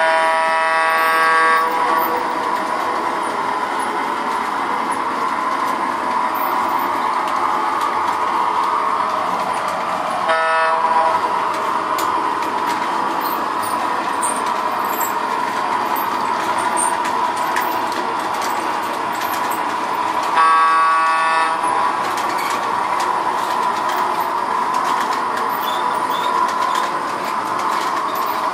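MTH Standard Gauge Ives Olympian bipolar electric locomotive running along its track with a steady running noise, sounding its Proto-Sound horn three times: at the start, about ten seconds in, and about twenty seconds in.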